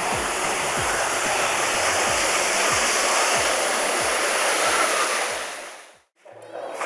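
Steady rush of flowing water, with a soft low thump repeating about every two-thirds of a second underneath. It all fades out near the end.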